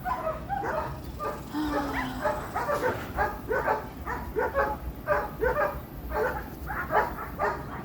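German shepherd puppies barking and yipping in a quick, continuous run of short barks, about two or three a second.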